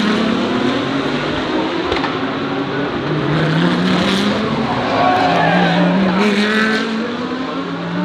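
DTM GT3 race cars running at speed past the track, their engines accelerating with the pitch climbing twice as cars pull through the gears, one after another.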